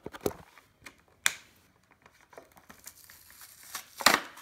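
Toy packaging being wrestled open by hand: plastic and cardboard crinkling and tearing in irregular snaps, with a sharp snap about a second in and a louder rip near the end.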